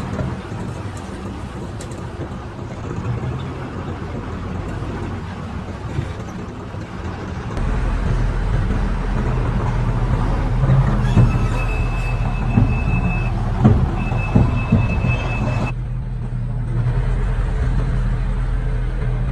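Diesel engine of heavy construction equipment running steadily, getting louder partway through, with a few metallic clanks and a steady high-pitched tone near the middle.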